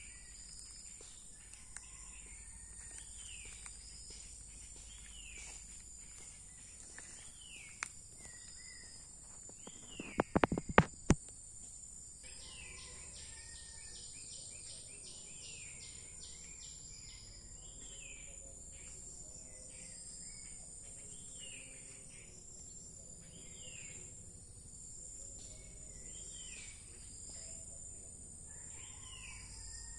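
Crickets and other insects shrilling steadily and high, with a short falling call repeated every second or two. A brief cluster of loud knocks comes about ten seconds in.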